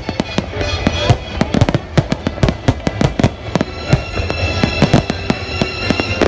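Aerial fireworks bursting in rapid succession, several sharp bangs and crackles a second, over the display's music soundtrack.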